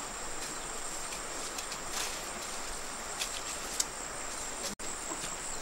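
Steady, high-pitched drone of insects in forest undergrowth, with a few light clicks and snaps. The drone cuts out for an instant a little before the end.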